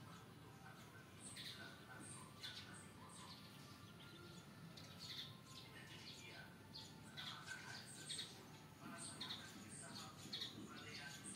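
Faint, repeated high chirps of small birds.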